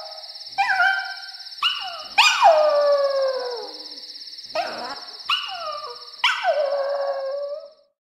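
A small dog howling in a series of calls, each rising sharply and then sliding down in pitch. The longest and loudest howl comes about two seconds in and another long one near the end, over a steady high whine.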